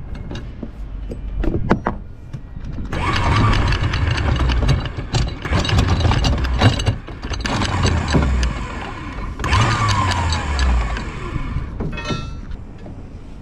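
Electric anchor windlass running in three bursts of a few seconds each, starting about three seconds in, paying out anchor chain with the links rattling over the gypsy.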